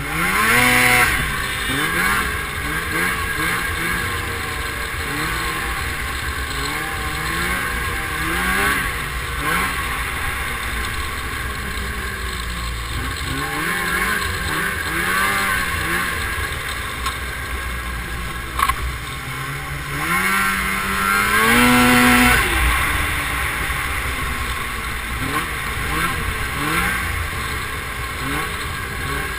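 Snowmobile engine running while riding along a trail, its pitch rising and falling with the throttle, with two louder climbs in revs, about a second in and again near two-thirds of the way through.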